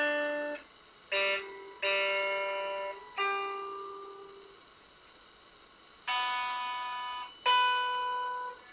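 Harley Benton SC-550 single-cut electric guitar, single notes plucked one at a time, about six in all, each ringing out and fading before the next. They are played to check the intonation string by string; the low E and G strings need a little adjustment.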